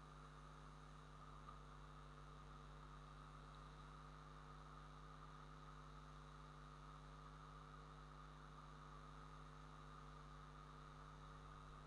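Near silence: a steady faint hum with a low hiss.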